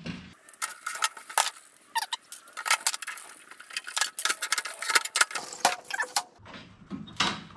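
Metal parts of a stainless-steel sandwich press clinking and rattling as they are worked loose and taken off, a quick run of sharp clicks and clanks that stops about six seconds in.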